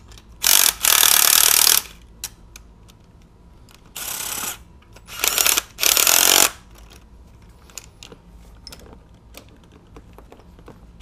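Cordless impact driver running in the air-conditioning compressor's mounting bolts in short bursts: a brief burst about half a second in and a longer one of about a second, then three shorter bursts around the middle. Light clicks of the tool and socket being handled come between the bursts.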